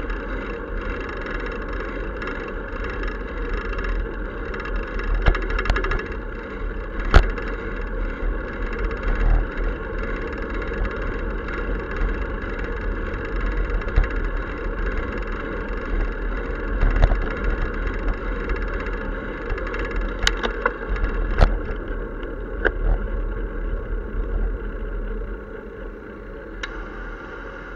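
Steady rush of riding noise picked up by a camera on a moving bicycle, with a dozen or so sharp clicks and knocks scattered through it, the loudest about seven seconds in.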